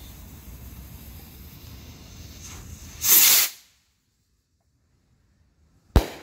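Brothers Skybolt firework rocket: its lit fuse hisses steadily, then about three seconds in the rocket launches with a loud whoosh lasting about half a second. Near the end its burst goes off high up with one sharp bang, the loudest sound, trailing off briefly.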